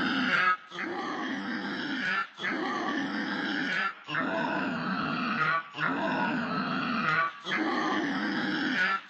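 A clip run through pitch-shifting voice effects comes out as a low, growl-like sound. It repeats in chunks about a second and a half long, each ending in a short break.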